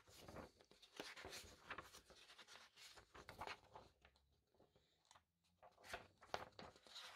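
Faint rustling of printed paper pages being leafed through by hand, busiest in the first few seconds, quieter in the middle and picking up again near the end.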